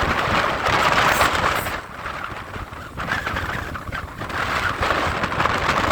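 Hurricane wind gusting hard against the microphone, a rushing noise that swells and eases: loudest in the first two seconds, dropping back, then building again near the end.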